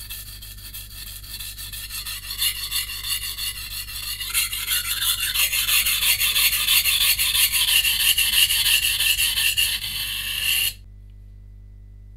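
VG10-core santoku blade ground back and forth on a coarse 180-grit whetstone in rapid, rhythmic, gritty scraping strokes. The strokes grow louder about four seconds in and stop suddenly near the end. This is the edge being re-set after chip repair, raising a burr along the second side.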